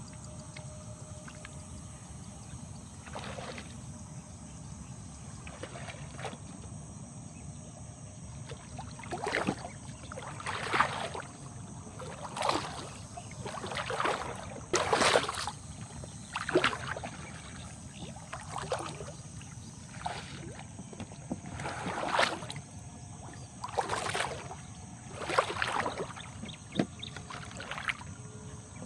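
Water sloshing and splashing in a series of short strokes about every one to two seconds, starting about a third of the way in, over a steady low rumble.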